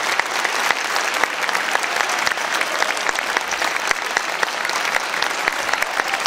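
Audience applauding steadily: many hands clapping at once in dense, even applause.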